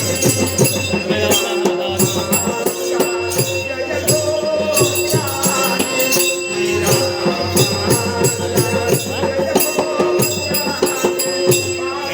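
Dashavatar folk-theatre music: sustained harmonium tones over fast, dense drum strokes and jingling metal percussion.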